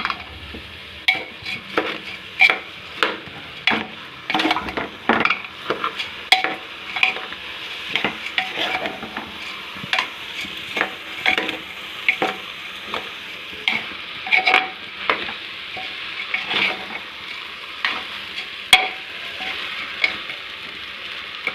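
Spoon stirring rice into fried vegetables and spices in a pressure cooker, scraping and knocking against the metal pot about once or twice a second over a steady sizzle of frying.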